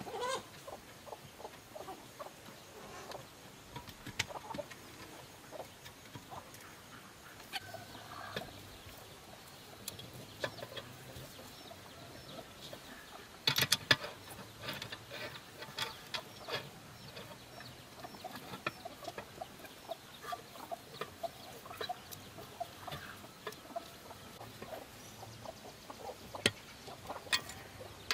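Chickens clucking on and off, with scattered metallic clicks and knocks of a wrench working the hub bolts of a threshing-machine wheel; the loudest is a quick clatter about halfway through.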